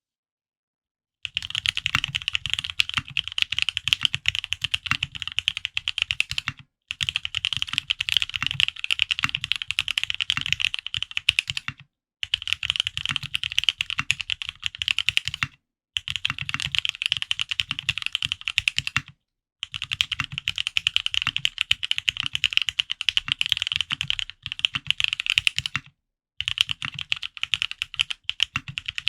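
Fast typing on a Frog mini custom mechanical keyboard with lubed Gateron Ink Black linear switches, an aluminium plate and 50A tadpole mounts. The keystrokes come in six quick runs separated by brief pauses, starting about a second in.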